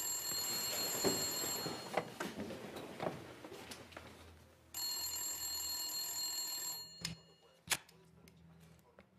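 Telephone ringing in repeated rings about two seconds long: one is already sounding at the start and fades about two seconds in, and a second comes about halfway through. Between the rings there are soft shuffles, and two sharp knocks follow near the end.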